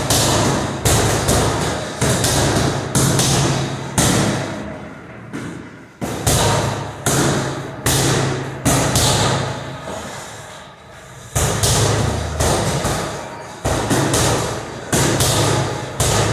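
Punches thudding into a cobra reflex bag, about one a second, each hit followed by a short rattling decay as the bag springs back, with a brief pause about two-thirds of the way through.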